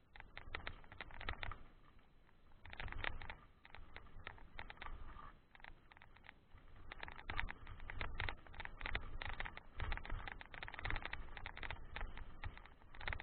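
Mountain bike tyres crunching and crackling over loose gravel, with dense irregular clicks and rattles from the rough track. It comes in uneven surges and is denser and louder over the second half.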